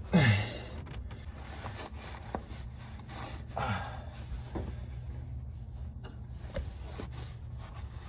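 A man's strained grunts, falling in pitch: a loud one at the start and a smaller one about three and a half seconds in, as he hand-tightens a large hydraulic filter through a rag. Faint rubbing and a few light clicks sit over a steady low hum.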